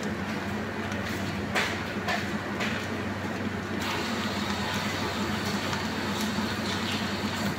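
Steady kitchen hum with an even hiss, broken by a few light clinks about one and a half to two and a half seconds in; the hiss grows brighter about four seconds in.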